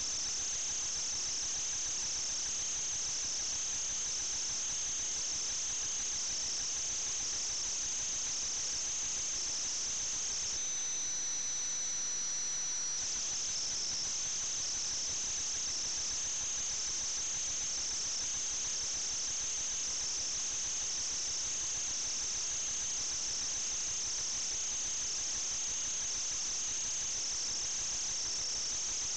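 Steady high-pitched chirring of insects such as crickets. A steady thin whistle tone joins it for about two seconds near the middle.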